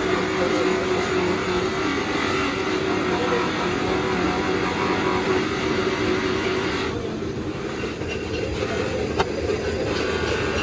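Steady motor or engine hum with a steady pitch; about seven seconds in the sound changes and loses its hiss, and a single sharp click comes a couple of seconds later.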